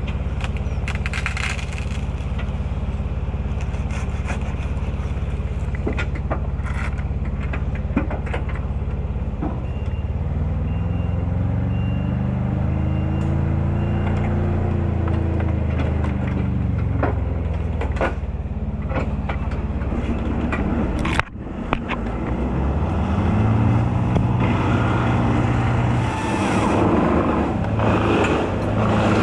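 Engine of the work machinery running at a steady low note. Its revs rise and fall slowly about ten seconds in and again near the end, with scattered clicks and knocks over it.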